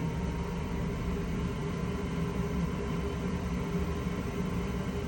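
Goodman gas furnace running with a steady rumble and hum from its burners and blower.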